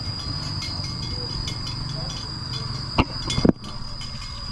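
Motorbike engine running and fading as it moves off. Two sharp knocks half a second apart, about three seconds in, are the loudest sounds.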